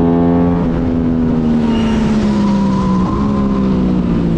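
Sport motorcycle engine running at high, steady revs at speed, heard from onboard with wind rushing past; the note sags slightly and breaks briefly twice, about half a second in and about three seconds in.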